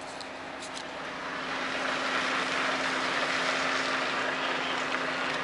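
Truck engine running as the tractor-trailer reverses, with a steady low hum throughout and a hissy rise in noise starting about a second and a half in.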